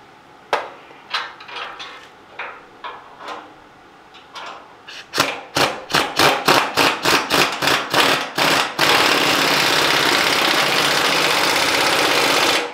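Pneumatic impact wrench tightening a bolt on a steel truck frame. A few scattered clicks and knocks come first, then short bursts about four a second, then a steady run of about four seconds that cuts off just before the end.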